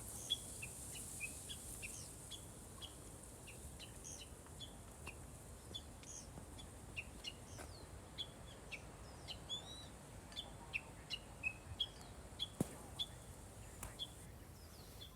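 Small songbirds chirping and twittering: many short, high chirps at irregular intervals, over a faint steady hiss.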